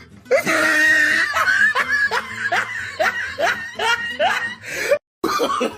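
Evil laugh sound effect: a voice laughing in rhythmic ha-ha pulses, about two a second, with a brief dropout near the end.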